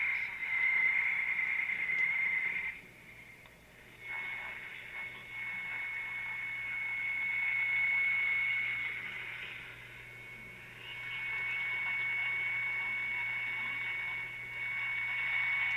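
Caprice AM radio picking up a weak, distant station: faint voice under static, with a steady high whistle over it. The signal drops out for about a second some three seconds in as the dial is turned, then comes back.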